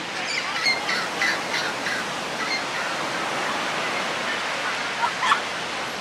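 Ocean surf breaking and washing up a sandy beach in a steady rush, with short high calls over it in the first couple of seconds and again about five seconds in.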